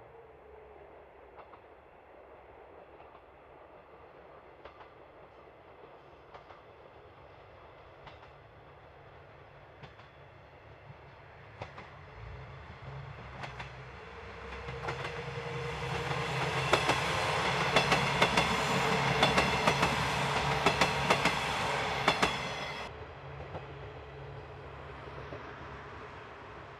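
A JR East KiHa 110 series diesel multiple-unit train approaches and passes close by, its diesel engines running with the rhythmic clickety-clack of wheels over rail joints. The sound builds over several seconds, is loudest for about six seconds as the cars go by, then falls away abruptly.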